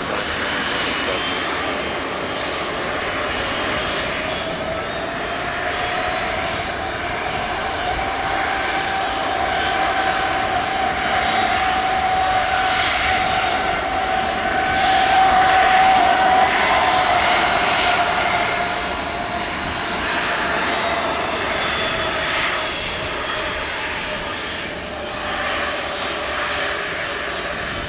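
Twin-turboprop engines of a Saab 340 cargo plane running steadily on approach and landing. The engine whine swells to its loudest just past the middle, then fades.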